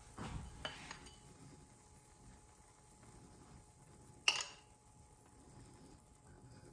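A metal spoon clinking against a small ceramic bowl of powdered sugar: a few soft knocks in the first second, then one sharp clink about four seconds in.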